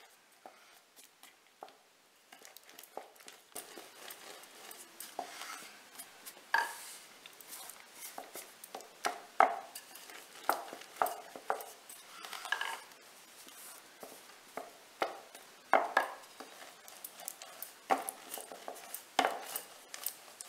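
Rolling pin pressed and rolled over a layer of hot caramel-coated peanuts on a wooden rolling board, making irregular clicks, crunches and knocks as the pin presses the nuts and bumps the board, with a handful of louder knocks spread through.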